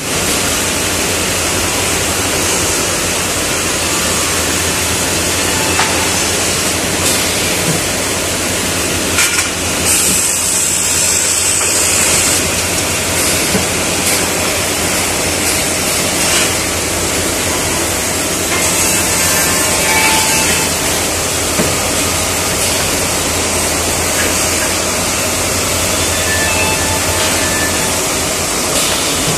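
Automatic finger-joint machine line running: a loud, steady whirr of motors and cutters under a rush of dust extraction, with a few clicks and two stretches of sharper hiss, one about ten seconds in and another near twenty seconds.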